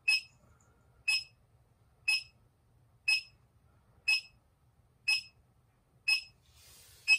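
Short, high electronic beeps, evenly spaced one a second, from a handheld monitoring meter's beeper. A faint rustle comes in near the end.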